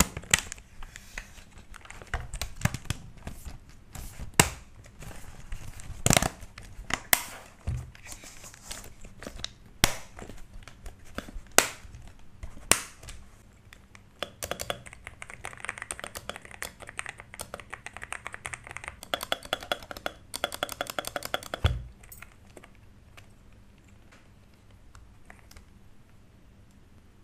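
Hands working on a mechanical keyboard and its plastic switch parts: scattered sharp clicks and knocks. Past the middle comes a fast, rattling run of clicks lasting several seconds, which stops suddenly.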